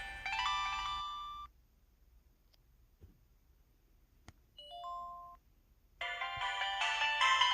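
MS700 mobile phone's 'Classic' power jingles played through the phone: a many-note electronic melody ends about a second and a half in, a short two-note chime sounds midway, and another melody starts about six seconds in.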